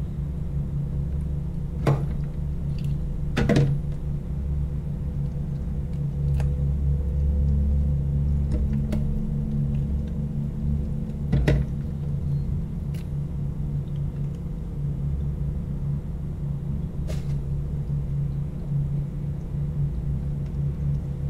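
A steady low hum, with a few separate sharp knocks and clicks as a squid and a kitchen knife are handled on a tray in a stainless-steel sink.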